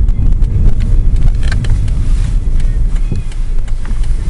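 Car driving along a town road, heard from the cabin: a loud, steady low rumble of road and engine noise, with wind buffeting the microphone.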